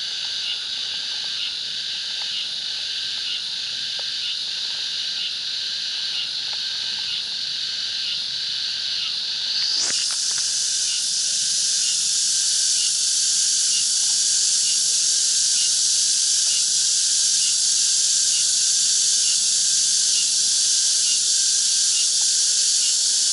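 Loud, steady chorus of insects: a high, hiss-like drone with a faint regular pulse. It grows louder and fuller about ten seconds in.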